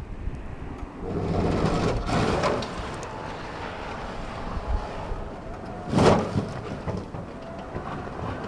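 Small electric tractor ploughing snow: the plough blade and tyres scrape and crunch over snow and ice, with one short, louder scrape about six seconds in.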